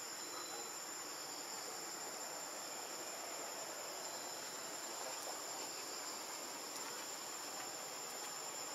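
Steady, high-pitched drone of insects.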